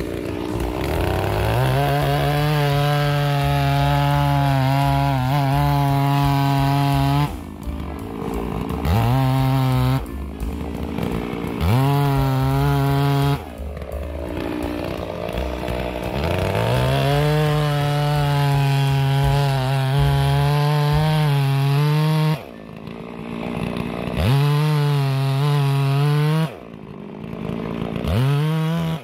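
Large two-stroke chainsaw running at high revs as it cuts through a thick log. The throttle is let off and squeezed again about six times, so the engine note drops away and winds back up.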